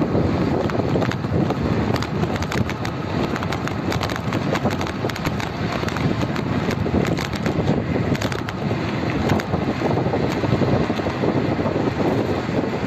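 Wind rushing over the microphone while moving along a road, a steady noise with frequent small clicks and rattles.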